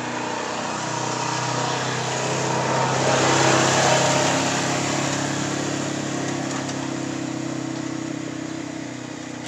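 A motor vehicle passing on the road, its engine and tyre noise swelling to loudest about three and a half seconds in, then slowly fading away.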